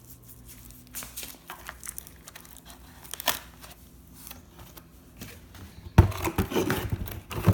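Cardboard and plastic firework packaging being handled: scattered rustles and light knocks, then a louder bout of rustling and bumping near the end.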